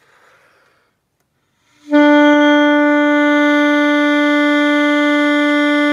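Alto saxophone holding one long, steady B from about two seconds in, played as a long-tone exercise aiming for a straight, projected sound.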